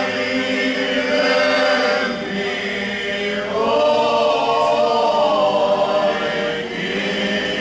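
A group of men singing a traditional Slavonian folk song unaccompanied, in long drawn-out notes with short breaths between phrases.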